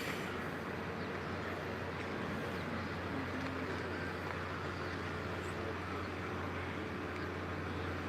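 A steady low hum under an even background noise, with no distinct events.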